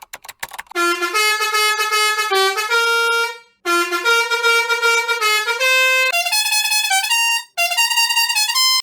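The 'London bus horn' sound effect: a brassy, multi-note musical horn playing a short tune of held, stepped notes. The tune plays four times, and the last two are higher in pitch, as edited variations of the same horn sound. A few quick clicks come just before the first tune.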